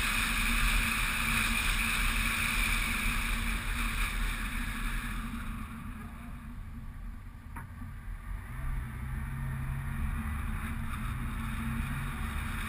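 Road and wind noise from a moving Honda Civic, heard as a steady low rumble under a rushing hiss. It eases off for a couple of seconds around the middle and then builds again.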